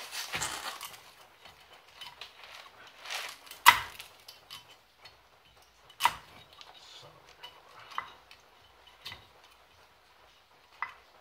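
A handful of sharp metallic clicks and clinks, the loudest a little under four seconds in, with quieter scraping and rustling between: brake pads and caliper hardware being handled and fitted by hand at a car's front wheel.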